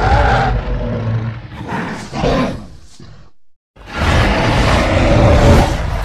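Custom-made Tyrannosaurus rex roar sound effect: a deep, rough roar that swells again about two seconds in and breaks off. After a brief gap, a second long roar begins near the middle.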